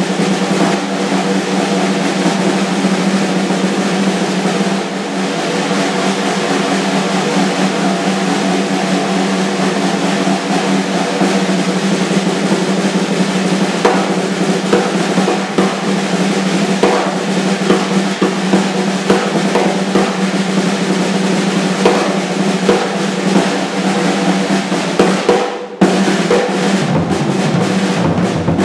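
Drum kit played with sticks: a long, dense run of fast strokes with no break in the rhythm, stopping for a moment about three seconds before the end, then starting again.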